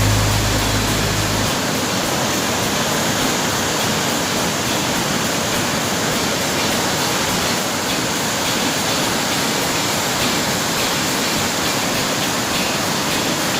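Waterfall cascading down rock steps: a loud, steady rush of falling water. Low background music tones stop about a second and a half in.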